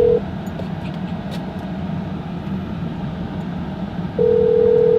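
Phone ringing tone (ringback) of a call connecting: a steady tone that stops just after the start and sounds again about four seconds in. The car's cabin noise runs steadily beneath it.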